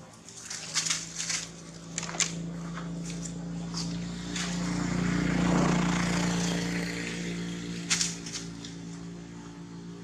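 Steady low engine drone of a passing motor, swelling to its loudest about halfway through and then fading. A few short, sharp high squeaks come in the first couple of seconds and once more near the end.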